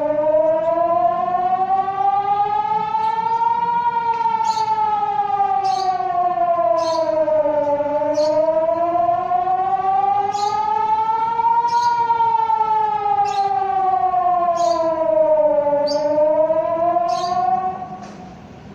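Public emergency warning siren wailing, its pitch rising and falling slowly in cycles of about eight seconds, then cutting off about a second before the end. The siren is sounding in a test of the city's warning system.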